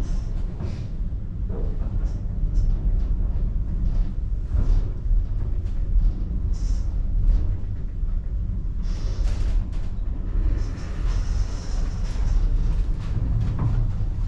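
Funicular cabin descending its track, heard from inside: a steady low rumble with scattered light rattles and clicks.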